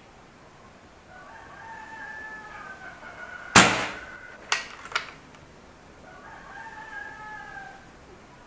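An air rifle fires once about three and a half seconds in, a single sharp crack that is the loudest sound, followed about a second later by two quick sharp clicks. A rooster crows before the shot and again near the end.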